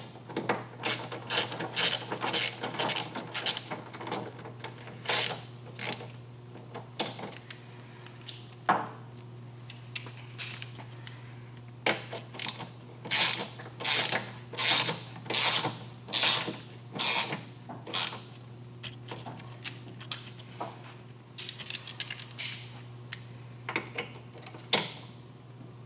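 Hand ratchet clicking in short runs with pauses between, as the mounting bolts of a motorcycle footpeg mount are tightened down.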